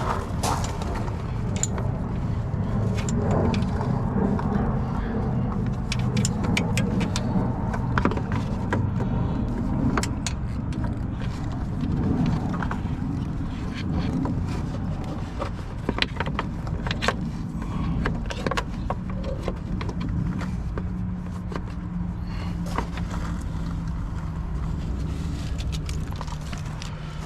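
A steady low engine rumble in the background, with many scattered sharp clicks and clinks from hand work on the winch's battery cables and terminals.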